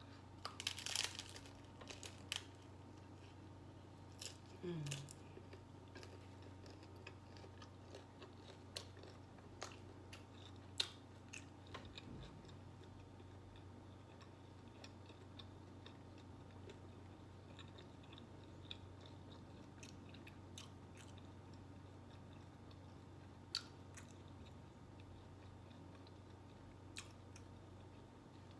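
A bite into a steak taco in a ranch taco shell with a loud crunch about a second in, then chewing with scattered small crunches and clicks, over a steady low hum.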